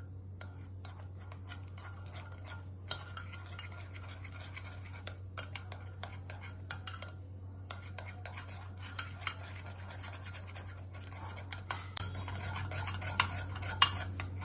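A spoon stirring thick cake batter in a bowl, scraping and clinking against the sides in an irregular rhythm, with two sharper clinks near the end.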